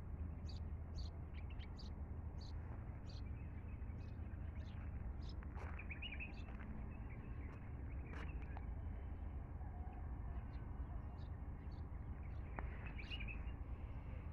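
Small birds chirping: short high chirps repeated every half second or so, over a steady low rumble.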